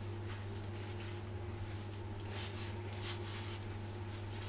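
Hands rubbing softened butter across a sheet of rolled-out brioche dough: soft, irregular swishing strokes, over a steady low hum.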